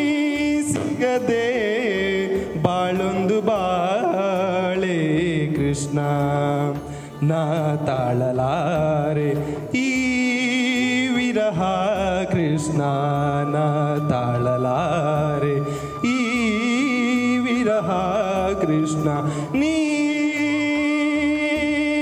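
A man singing solo: a slow melody with long held notes that waver in pitch, broken a few times by short pauses for breath.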